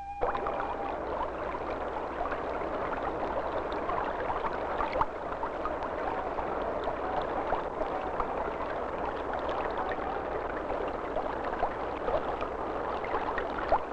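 Creek water rushing steadily, with many small splashes and gurgles throughout.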